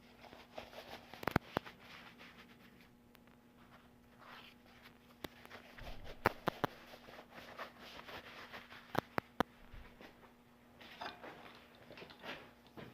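Faint, scattered clicks, taps and light scuffs of small handling noises, over a faint steady hum. No grinder is running.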